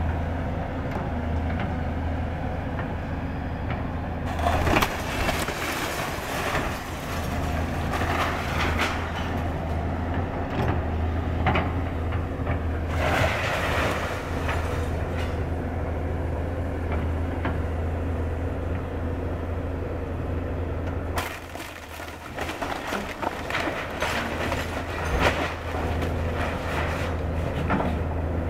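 Doosan tracked excavator's diesel engine running with a steady low hum, while its bucket tears into a wood-frame house: repeated cracking, splintering and crashing of siding and framing. About three quarters of the way through, the engine hum drops away and a quick run of cracks and knocks from the breaking timber follows.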